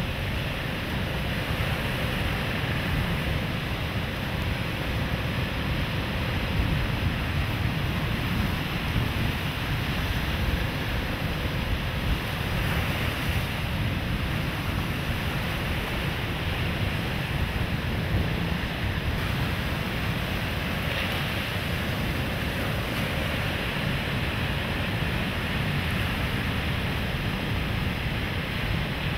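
Sea surf breaking and washing on a rocky, sandy shore: a steady rush with a low rumble of wind on the microphone.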